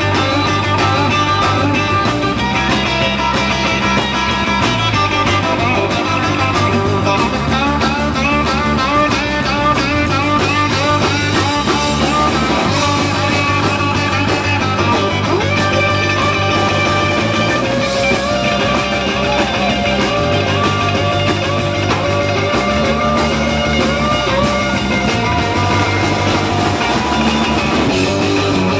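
Live rock and roll band playing an instrumental break, led by electric guitar over a bass line and drum kit.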